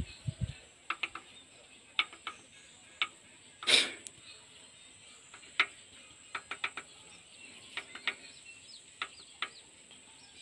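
Scattered metallic clicks and taps of hand tools against the valve rocker arms and adjusting screws of a Nissan truck diesel engine during a valve clearance check, with one louder knock a little under four seconds in.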